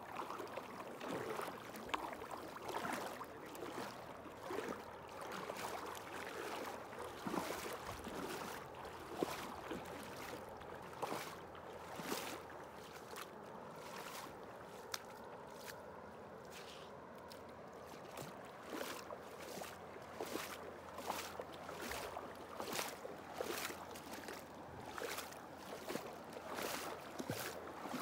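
Water splashing and sloshing in repeated strokes over a steady wash of running water.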